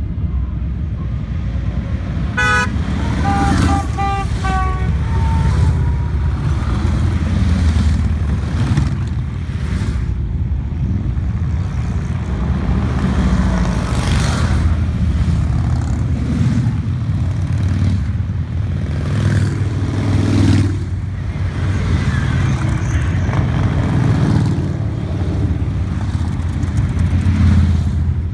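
A steady procession of touring and cruiser motorcycles rumbling past one after another. A horn honks a quick series of short toots about two to five seconds in.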